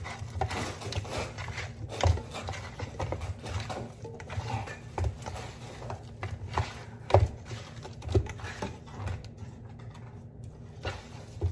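Hands tossing and mixing seasoned raw chicken pieces in a bowl: irregular soft thumps and knocks, with louder knocks about two seconds in and about seven seconds in.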